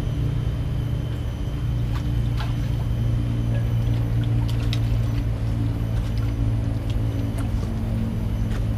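A motor running with a steady low hum, with a few faint clicks over it.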